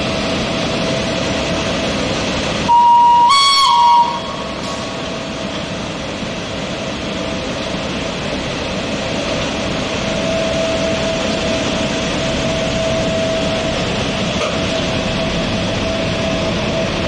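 SBB 'Crocodile' electric locomotive No. 13302 rolling slowly past, a steady rumble of wheels on rails with a constant whine. About three seconds in, a train horn sounds for just over a second, stepping up in pitch and back down.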